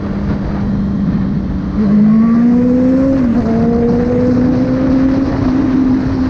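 Honda CB650F inline-four engine running through a full aftermarket Jeskap sport exhaust under way: a steady engine note that gets louder about two seconds in and then climbs slowly in pitch as the bike pulls, with a brief dip in pitch a little after three seconds.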